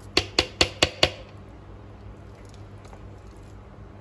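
A metal spoon tapped five times in quick succession against a plastic blender jar, knocking off thick cultured cream, within the first second. After that only a faint steady low hum remains.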